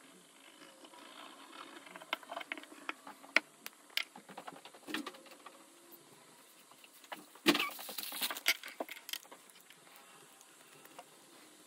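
Scattered light clicks and taps, then a short burst of clattering about seven and a half seconds in: small hard art tools such as paint markers and a toothbrush being handled and set down on a table.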